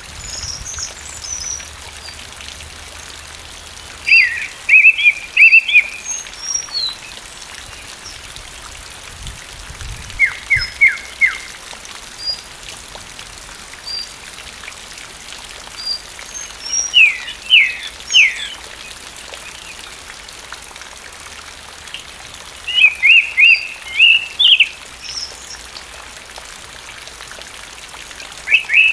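Song thrush singing in steady rain. Phrases of sharp repeated notes come every five or six seconds over an even hiss of rainfall, with fainter high notes in between.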